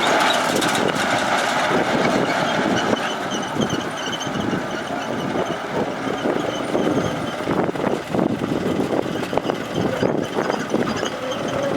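Heavy diesel earthmoving machinery running, with repeated clanks and knocks through the engine noise and a faint, broken high-pitched tone from a few seconds in.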